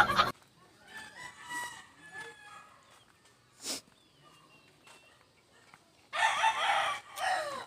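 Rooster crowing: a faint crow about a second in, then a louder crow near the end.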